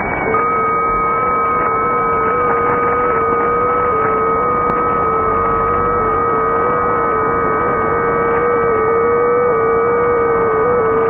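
Strange signal on 3572/3573 kHz heard through a shortwave receiver in upper sideband: a steady hum made of several held tones, the lowest wavering slightly up and down in small steps, over a bed of radio static.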